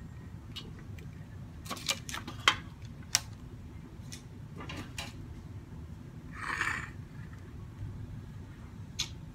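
Light clicks and taps of a spatula and a ceramic plate on a kitchen countertop as grilled eggplant is plated, with a short scraping slide of the plate across the counter about six and a half seconds in.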